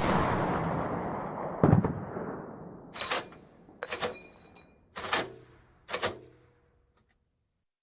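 Mk44 Bushmaster II 30 mm chain gun firing single heavy shots, about one a second: five reports in all. The first ones trail a long rolling echo; the later ones are shorter and sharper, with a faint metallic ring.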